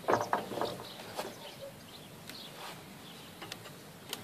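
A metal rod scraping and prying at matted grass and roots wound round the tines of a tractor rotary tiller: a few short rustling scrapes in the first second and a half, fainter ones after, and a sharp tick near the end.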